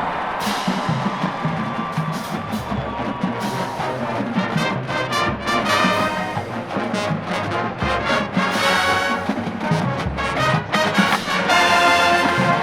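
Marching band brass playing full chords over drums, with a run of short, clipped chords broken by brief gaps in the second half.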